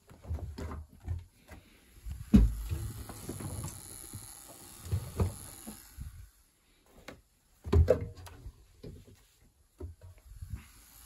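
Irregular knocks, bumps and rustling from handling a Hotpoint spin dryer as its laundry is changed over. Two louder thumps stand out, the second about five seconds after the first.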